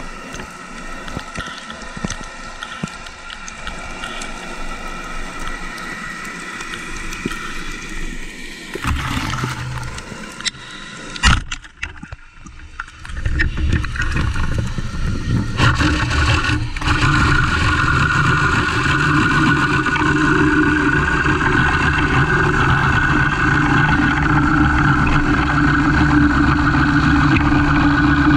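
Underwater sound through a camera housing: a single sharp click about eleven seconds in, typical of a speargun shot, then a louder steady drone with a low rumble and a held whine, like a boat engine heard through the water.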